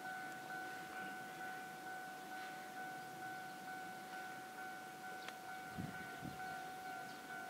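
Japanese railway level-crossing warning bell ringing, an electronic two-tone ding repeating steadily. Two short low thumps come about six seconds in.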